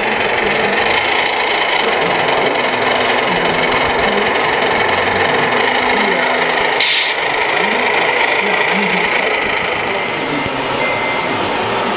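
Electric drive motor and gearbox of a radio-controlled MAN TGA scale truck whining steadily as it crawls along, with a steady high tone over a continuous mechanical hiss.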